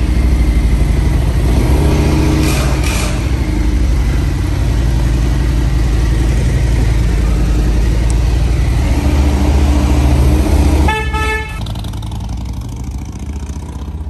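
Harley-Davidson Road Glide's V-twin engine running loud as the bike is ridden off. A short horn honk sounds about eleven seconds in, and after it the engine sound drops off.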